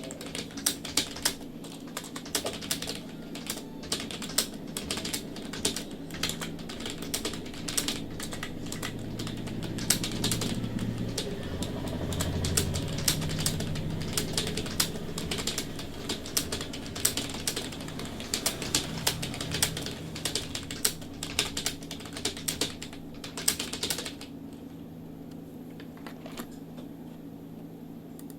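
Fast, continuous typing on a computer keyboard, a rapid run of key clicks that stops about four-fifths of the way through. A steady low hum runs underneath, with a low rumble swelling in the middle.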